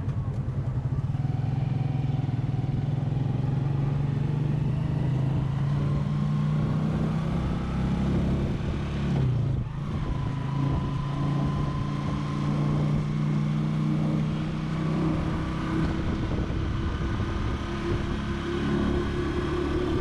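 Small motorcycle engine running steadily while riding along a road, heard from on the moving vehicle. Its pitch dips briefly about halfway through, then picks up again.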